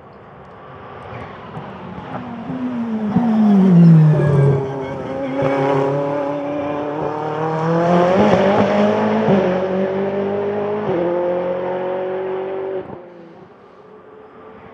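Ferrari 488 GT Modificata race car's twin-turbo V8 as the car goes by. The engine note swells and falls steeply in pitch, then climbs in rising sweeps under acceleration, with two sudden drops in pitch at upshifts about 9 and 11 seconds in. The sound falls away abruptly near the end.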